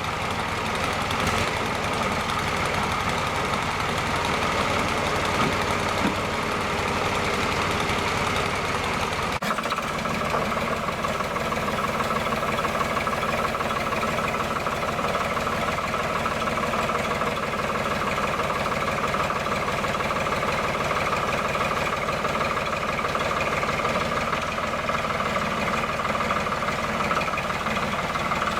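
Backhoe engine running steadily, with a brief dip about nine and a half seconds in.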